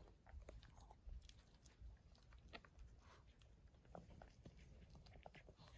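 Faint, scattered wet clicks and smacks of a Cavalier King Charles Spaniel mother licking her newborn puppies.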